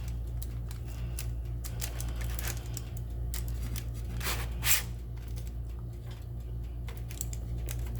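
Soft rustling and crackling as freshly baked, still-hot cookies are broken apart by hand, with a louder rustle about four and a half seconds in, over a steady low hum.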